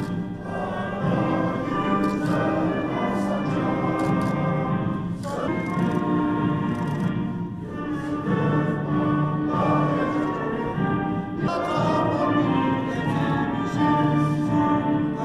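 A national anthem played by an orchestra with a choir singing.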